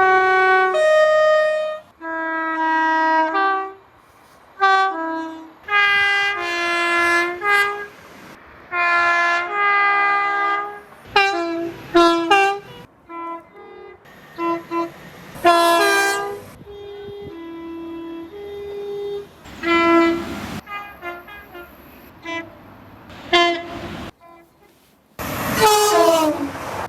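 A string of train horns sounding chords, some long blasts and some short toots, one after another with abrupt cuts between them. Near the end a loud horn falls in pitch as the train passes by.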